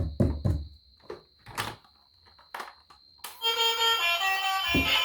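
A few sharp knocks over a faint steady high whine, then, a little after halfway, music starts and runs on.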